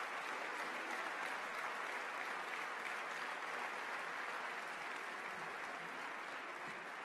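Audience applauding, a steady dense clapping that slowly fades toward the end.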